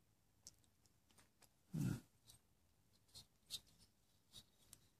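Mostly near silence, broken by one short dull sound just under two seconds in and a few faint clicks later, as the metal cylinder with its reed valve intake and diaphragm carburettor is turned over by hand.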